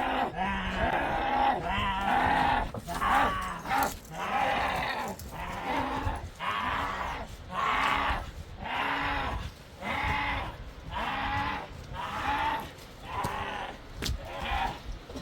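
Goats or sheep bleating over and over, a string of similar rising-and-falling calls about one a second.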